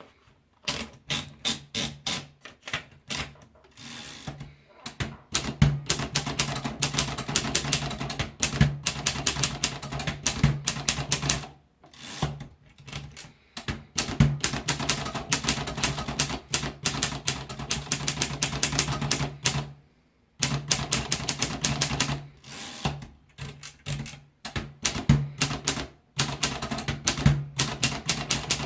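Hermes Media typewriter being typed on: rapid key strikes in fast runs, broken every several seconds by short pauses.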